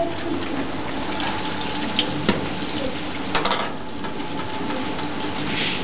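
Frappe dough strips deep-frying in very hot oil: a steady, busy sizzle with scattered crackles. A few sharp clicks come near the middle.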